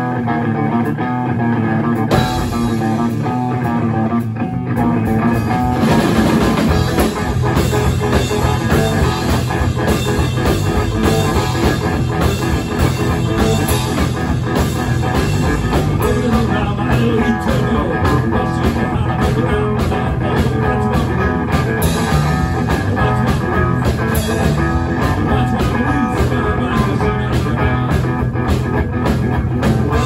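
Live three-piece rock band playing a blues number: guitar, bass guitar and drum kit. The guitar is nearly alone at first; the bass and drums fill in about two seconds in, and the playing grows fuller about six seconds in.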